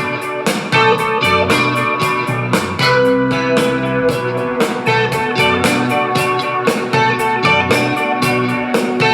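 Instrumental music, guitar over a steady beat, played back through a JBL Clip portable Bluetooth speaker for a sound test.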